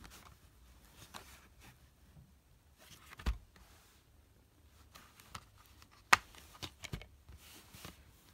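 Plastic DVD keep case being handled with light rustles: a dull thump about three seconds in as it is turned over onto a blanket, then a sharp snap about six seconds in as the case is opened, followed by a few lighter clicks.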